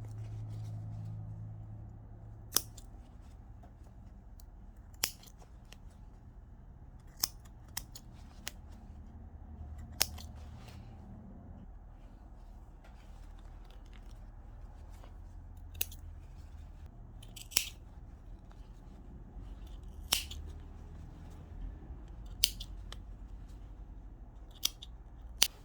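Scissors snipping through the stitching threads of denim to free an old zipper: sharp single snips at irregular intervals, a second or several apart.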